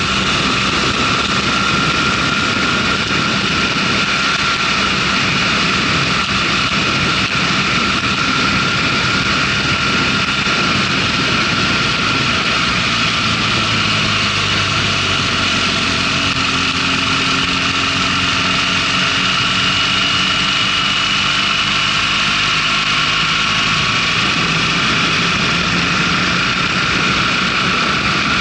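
Motorcycle engine running at road speed under heavy wind rush past the onboard camera, the engine note rising and falling a little through the bends.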